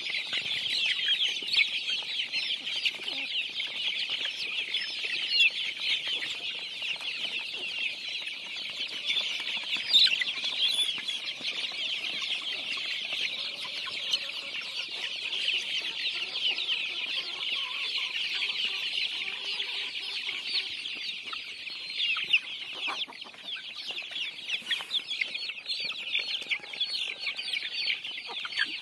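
Large flock of young desi chickens calling together as they feed: a dense, unbroken chorus of short high-pitched calls.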